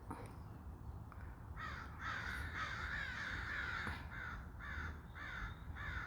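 Crows cawing: a long run of harsh caws from about one and a half seconds in, then separate caws about two a second toward the end. These are crows' alarm calls while a large bird of prey raids their nest.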